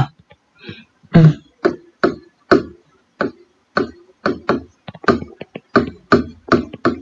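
Marker pen writing on a whiteboard: a run of short, quick strokes, two to three a second, starting about a second in.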